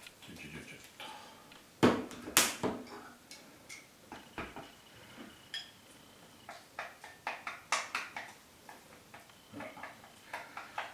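Chopsticks clicking and scraping against a ceramic rice bowl during eating, a run of short light taps. A couple of louder knocks come about two seconds in.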